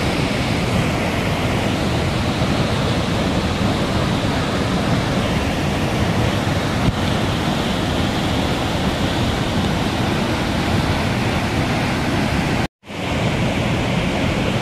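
Muddy floodwater pouring down a rocky waterfall: a steady, loud rushing of water that cuts out for a split second about 13 seconds in.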